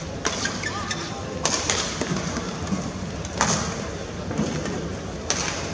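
Badminton rally: sharp racket strikes on the shuttlecock about every one to two seconds, with dull thuds from players' feet, over steady crowd murmur in a large hall.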